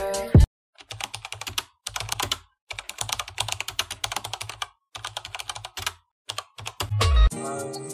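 Computer keyboard typing: rapid key clicks in about four bursts with short pauses between them, matching on-screen text being typed out. A brief low thump comes near the end.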